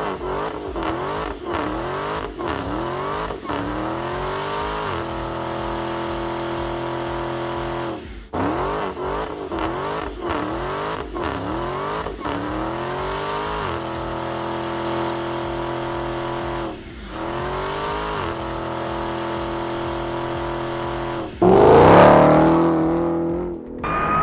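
Dodge Challenger Super Stock's supercharged 6.2-litre V8 accelerating hard, its pitch climbing in quick sweeps through successive upshifts, then running at steady revs. Near the end it gets suddenly louder, with the pitch falling as the car passes close or comes off the throttle.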